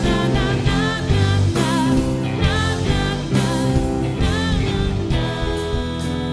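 A live band playing a song with sung vocals over guitar and a steady bass line. The singing stops about five seconds in, leaving steady held chords.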